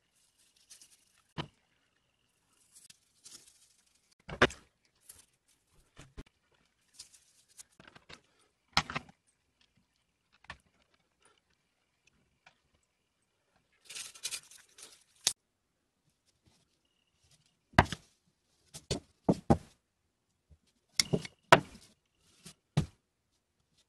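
Small metal parts of an antique plow plane (screws, irons, fittings) clicking and knocking against each other and a plastic tub as they are handled in the rust-removal soak. There is a short brushy scrubbing noise about midway, and a quick cluster of clicks near the end as parts are set down.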